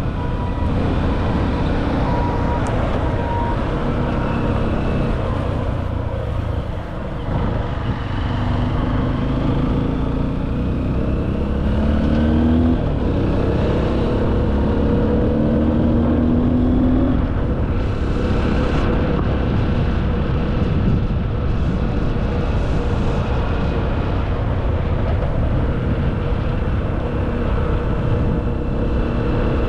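Motor vehicle driving, a steady engine and rumble with the engine pitch rising in several steps around the middle, as when accelerating through the gears.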